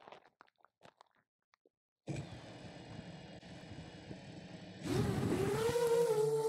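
A few faint handling clicks, then about two seconds in the DJI FPV drone's motors and propellers start with a low hum and hiss. Near five seconds in they get much louder as the throttle goes up: a steady propeller whine whose pitch rises briefly and then holds.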